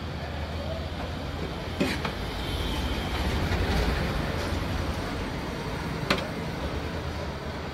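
A steel ladle clinks sharply twice against a large steel pan as chhole is served, about two seconds in and again about six seconds in. Under it runs a steady low rumble of background noise.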